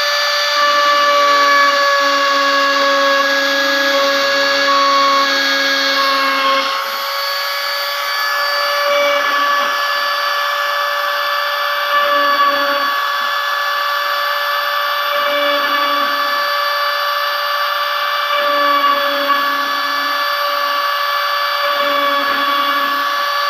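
CNC router spindle whining steadily as its fine engraving bit cuts a logo into a steel sheet. A lower hum comes and goes every few seconds beneath the whine.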